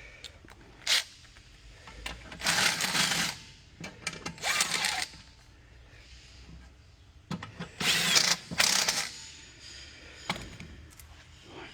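Loose nuts and bolts rattling and clattering as a metal bolt bin is rummaged through, in several separate bursts of a second or less with a few sharp clicks between.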